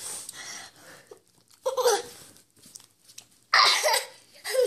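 A young girl's breathy laughter and hard breaths while she strains to pull on a tight leotard, with a short voiced grunt about two seconds in and a loud breathy burst near the end.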